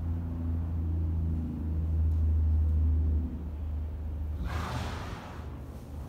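A low, steady engine-like rumble with a hum in it, loudest for the first three seconds and easing after that. About four and a half seconds in comes a short rushing whoosh.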